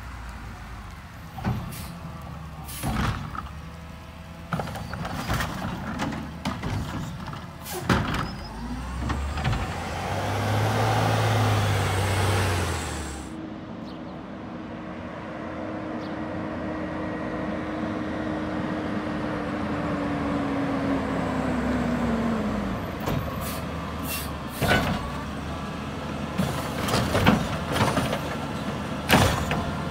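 Mack LR garbage truck with a McNeilus body and Curotto-Can arm at work. The engine revs up and settles, and a steady whine later slides down in pitch. Through it come sharp clanks and bangs as the arm lifts a wheeled cart and tips it into the hopper, dense near the end.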